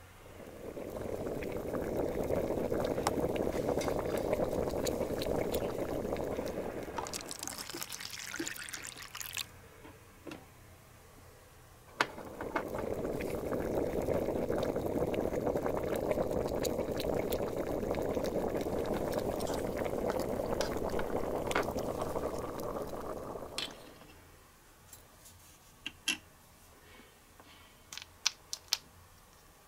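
A small pot of beef and sauce simmering, a steady bubbling in two long stretches, broken by a short high hiss in between. Near the end come a few light clicks and taps as cooked rice is scooped from a tiny pot into a bowl.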